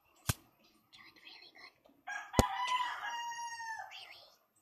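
A rooster crowing once, a single held call of about two seconds starting about halfway through. Two sharp knocks, one near the start and a louder one just as the crow begins.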